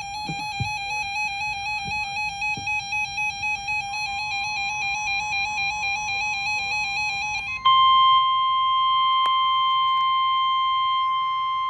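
An electronic emergency alert tone warbles rapidly between two close pitches and pulses in loudness. About seven and a half seconds in, it gives way abruptly to a louder steady single tone: the NOAA Weather Radio 1050 Hz warning alarm tone that comes before a warning message.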